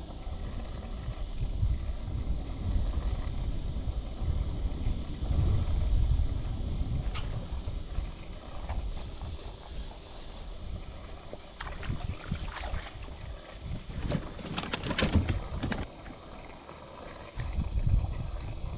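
Low, uneven rumble of wind buffeting the microphone on the water, with a run of clicks and knocks about two thirds of the way in.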